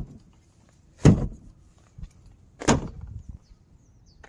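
Two sharp thumps about a second and a half apart: a loose panel at the rear of a Honda Fit being pushed home by hand to seat its new replacement clips.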